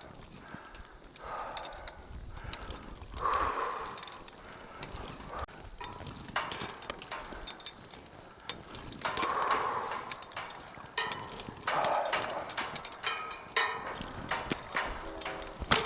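A tower climber breathing hard from the exertion of climbing, with heavy breaths every few seconds. Sharp metallic clicks and clanks of climbing gear against the steel tower come in between.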